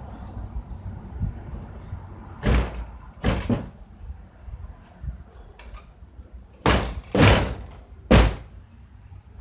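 Five short, loud thumps: two about a second apart, then after a pause of about three seconds, three more about half a second to a second apart.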